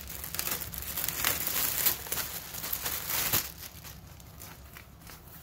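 Clear plastic poly bag crinkling as it is handled and pulled off a baseball cap, with a few sharp crackles; it dies down after about three and a half seconds.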